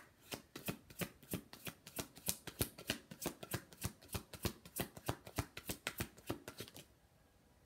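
Deck of oracle cards being shuffled by hand: a quick run of card slaps, about four a second, stopping about a second before the end. This is the shuffle for drawing a clarifier card.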